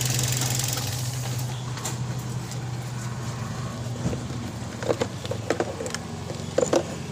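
Toyota Vios four-cylinder engine idling with a steady low hum, with a few light clicks about five and six and a half seconds in.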